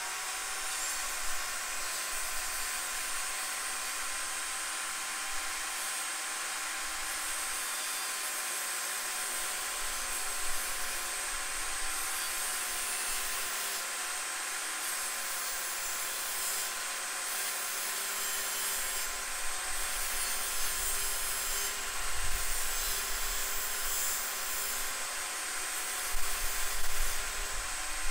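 DeWalt DWE7492 jobsite table saw running steadily with a constant motor whine as its blade cuts around a large-diameter PVC pipe turned by hand on the table. A few low thumps come near the end as the pipe is cut through into two pieces.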